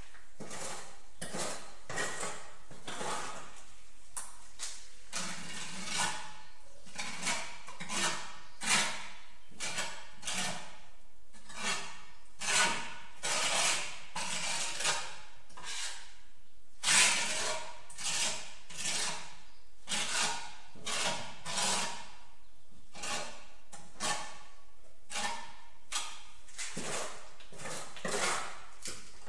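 Steel trowel scraping and scooping cement mortar, a long run of short scraping strokes about one to two a second, a few of them louder.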